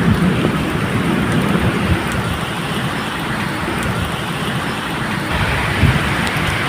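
Steady medium rainfall, with a low rumble of distant thunder underneath that swells near the start and again near the end.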